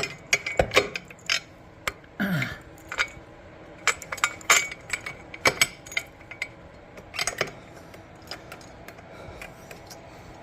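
Metal tools and scooter hardware clinking and knocking irregularly as bolts, washers and parts of the rear wheel and swing arm are handled.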